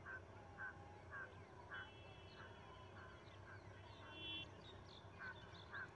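Near silence, with faint short bird calls repeating about twice a second and a couple of brief higher whistled notes in the middle.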